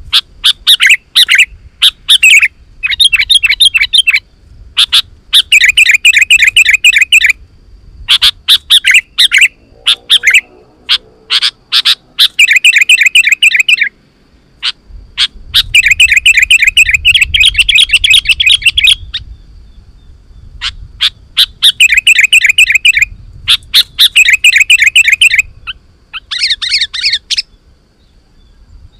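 Sooty-headed bulbul singing loudly: bursts of rapid, chattering whistled notes, each a second or two long, repeated with short pauses. A higher, thinner phrase comes near the end.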